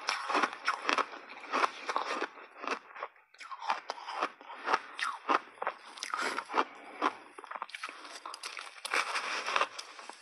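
Block ice coated in milk powder being chewed with the teeth: dense, irregular crunching and cracking, close on a clip-on microphone, with a brief lull a little after three seconds in.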